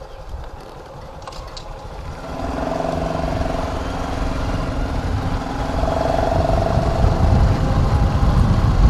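Honda Wave underbone motorcycle engine running while ridden, its hum coming in about two seconds in and growing louder, over low wind rumble on the microphone.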